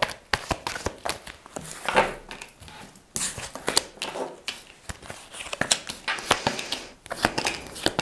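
Tarot cards being shuffled and handled: a run of quick, irregular crisp flicks and rustles with a short lull partway through.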